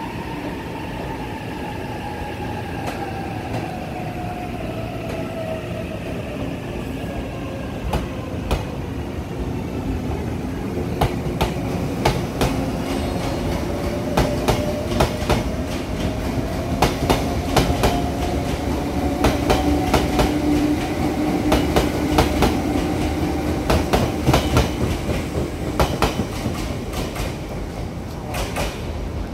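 Izukyu 2100 series 'Resort 21' electric train running past along the platform. A motor whine falls in pitch over the first several seconds and then climbs again. From about ten seconds in, the wheels clack over rail joints, faster and more often as the carriages go by.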